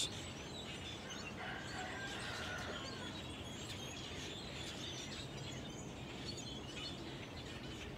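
Outdoor backyard ambience: a steady background hiss with birds chirping now and then, a short run of chirps about two seconds in.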